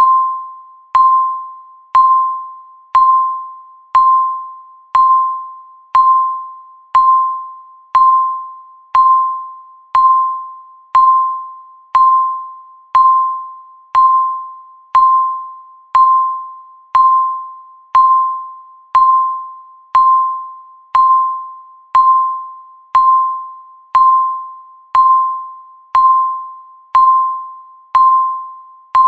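Countdown timer beeping once every second: a single short electronic beep at one steady pitch, each starting sharply and fading away quickly.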